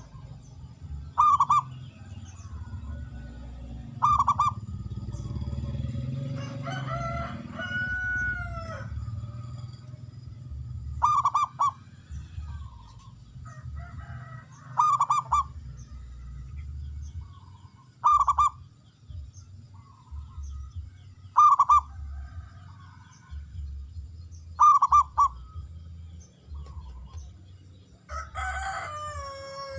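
Zebra dove (perkutut) calling: short loud cooing notes repeated every three to four seconds. Another bird gives longer, pitch-falling calls twice, about seven seconds in and near the end, over a steady low background rumble.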